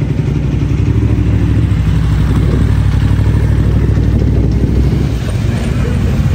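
Motorcycle engines running steadily as bikes ride slowly past on cobbles.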